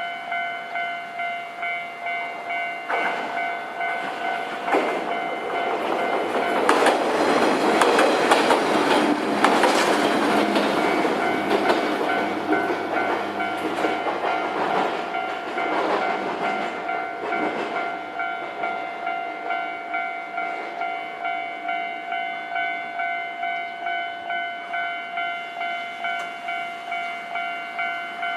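Japanese level-crossing warning bell ringing in an even, rapid ding-ding, a little under two strokes a second. A train passes over the crossing from about three seconds in until about eighteen seconds, its wheels clattering over the rail joints, loudest around eight to ten seconds.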